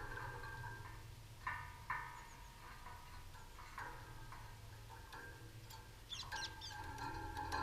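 Birds calling: repeated short calls, with a brief cluster of high, quick chirps about six seconds in, over a low steady hum.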